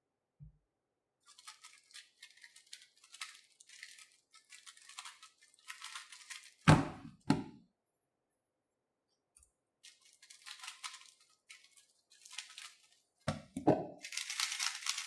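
Plastic 3x3 speedcube being turned rapidly, its layers clicking and clacking in quick runs with short pauses. A sharp knock about six and a half seconds in is the loudest sound, with a second one just after and more knocks near the end.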